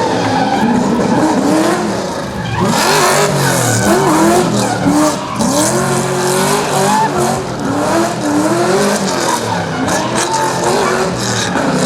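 Holden Commodore's LS2 V8 revving hard, its pitch repeatedly rising and falling through a drift, with the tyres squealing. The tyre noise grows stronger about three seconds in.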